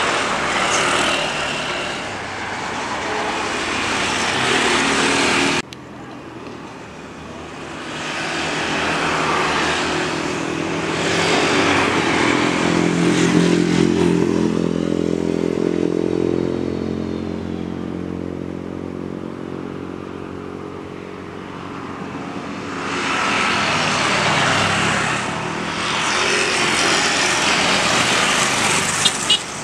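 Jet airliner engines during landings. A Boeing 737-300's engines run through its rollout and cut off suddenly about five and a half seconds in. Then an Airbus A320neo's engines swell to a humming tone as it comes in and touches down, fade, and rise again to a louder rush as it rolls down the runway near the end.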